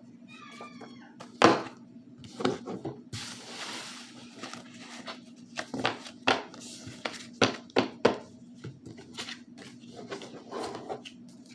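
Tarot cards being shuffled and handled on a table: a series of sharp snaps and taps, with a longer rustle about three to four seconds in.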